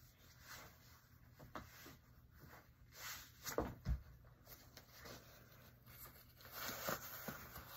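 Faint rustling and handling noises, with two soft thumps about three and a half and four seconds in.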